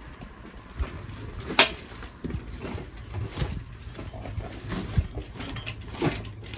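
Scattered short clinks and knocks of metal from a hoisted 200Tdi diesel engine being handled and nudged on its engine-crane chain, one sharp click louder than the rest about one and a half seconds in.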